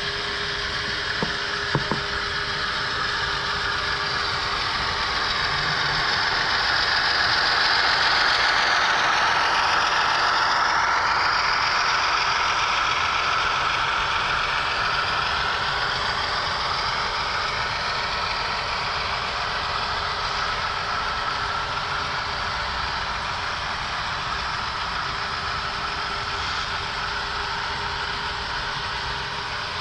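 HO scale model train running on the track: a steady mechanical rumble of wheels on rails, with a sound-equipped diesel locomotive's engine sound. A couple of small clicks near the start; it swells to its loudest about eight seconds in, then eases off slowly.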